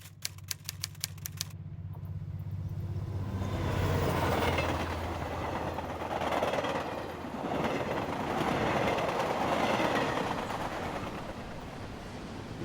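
A train running past: a rumble that builds over the first few seconds and then surges and eases in waves, over a low steady hum. A quick run of sharp clicks, about five a second, opens it.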